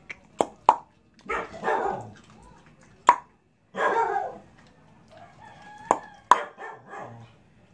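A rooster crows twice, mixed with sharp crunching clicks from a dog chewing dry kibble.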